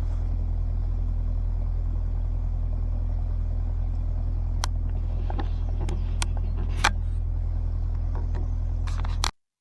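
Narrowboat's diesel engine running steadily under way, a low even drone. A few short high ticks come through midway, and the sound cuts off abruptly just before the end.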